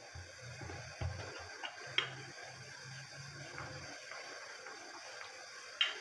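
Wooden rolling pin rolling out stiff egg pasta dough on a floured stone counter: a faint low rolling sound for about the first four seconds, with sharp knocks about one and two seconds in and again near the end.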